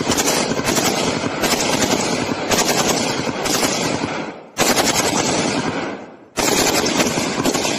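5.56 mm INSAS-family assault rifle firing on full automatic: long, rapid bursts of shots with brief pauses about four and a half seconds and six seconds in.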